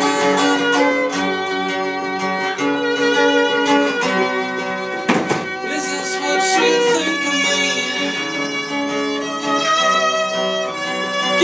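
Violin bowing a melody over a strummed acoustic guitar.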